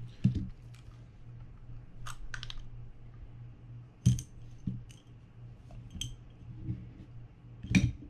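Small parts of a Daiwa BG90 spinning reel being handled during disassembly: a series of separate sharp clicks and knocks as the screwdriver is set down and the reel's gear-side cover is lifted off and laid on the work mat, the loudest about four seconds in and near the end. A faint steady low hum runs underneath.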